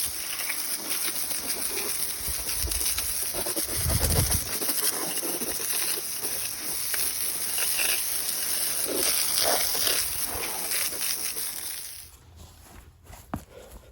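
A steady spray hissing onto a steel anvil for about twelve seconds, then cutting off, with a few dull knocks partway through.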